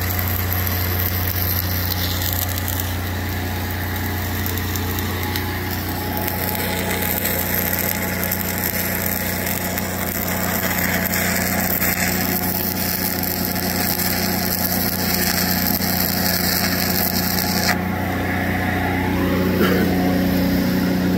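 Stick welding with a 1/8-inch 7018 electrode: the arc's steady crackle over the steady drone of a Lincoln 305D engine-drive welder. The arc breaks off about 18 seconds in and the engine runs on.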